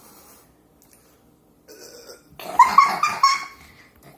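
A girl making a loud, throaty gagging noise for about a second, a little past halfway, a mock-disgusted gross-out sound.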